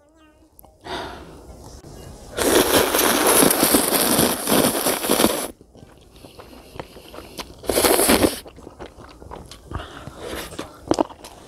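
Instant cup-ramen noodles slurped in one long loud slurp, with a second short slurp about eight seconds in. Near the end, crisp crunchy chewing as a piece of sea cucumber is eaten.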